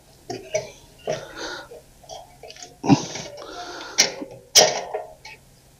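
Handling noise as a carburetor is fitted back onto a portable generator's small engine: scattered light scrapes and rattles of metal parts, with two sharp clicks about four and four and a half seconds in.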